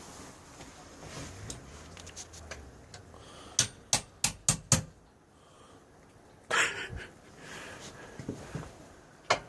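Five quick sharp taps, about four a second, of a hand tool striking parts of a pocket bike during engine removal, followed a couple of seconds later by a brief scraping noise and a few lighter knocks.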